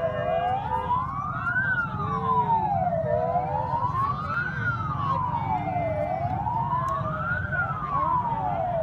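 Police car siren on a slow wail, its pitch rising and falling about once every three seconds, three full cycles, over a steady low background noise.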